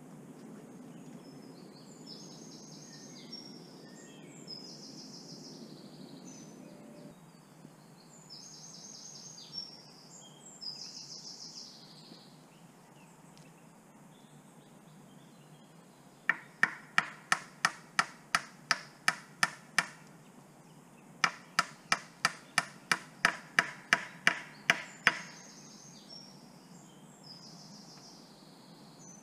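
Birds singing in repeated short phrases, then two runs of sharp, evenly spaced knocks, about three a second and a dozen or so in each run, with a short pause between.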